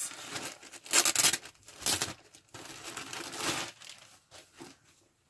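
Packaging crinkling as it is handled and unwrapped, in several rustling bursts that die away about four seconds in.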